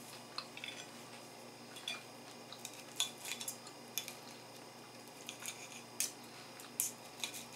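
Knife and fork clicking and scraping on a ceramic plate while cutting a breaded chicken cutlet: faint, scattered light clinks a few times a second.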